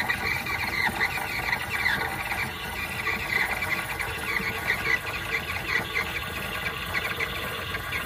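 DeLonghi EC702 espresso machine's steam wand steaming half-and-half in a stainless steel pitcher: a steady hiss with rapid, high-pitched squeals as the milk heats and froths.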